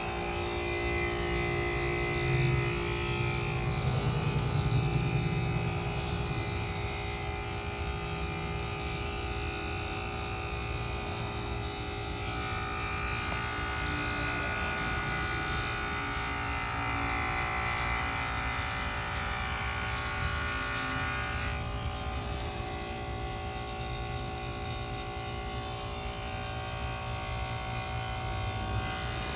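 1993 Carrier Tech2000 1.5-ton heat pump running through its defrost cycle: a steady mechanical hum and buzz. A higher tone joins in from about twelve seconds in and drops out again about ten seconds later.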